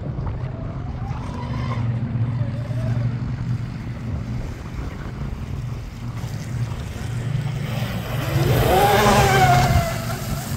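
Twin-motor RC speedboat with two brushless motors running at speed across choppy water. Its high whine is faint at first, then gets loud as the boat passes close about eight seconds in, rising and then falling in pitch, with a hiss of spray.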